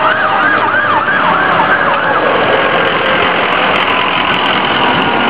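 Emergency vehicle siren in a fast up-and-down yelp, about three sweeps a second, fading out about two seconds in, over a steady loud rushing noise.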